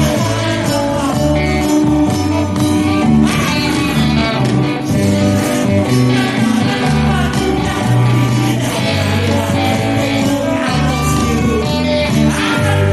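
Live band playing a nostalgic Indonesian pop song, with electric guitars, bass, drums and tambourine, and singing.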